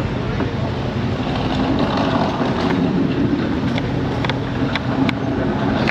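Steady low hum of running machinery, with several sharp clicks in the second half.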